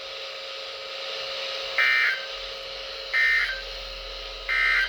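Three short, harsh buzzing data bursts, evenly spaced a little over a second apart: the Emergency Alert System end-of-message code sent over a weather radio, marking the end of the warning broadcast.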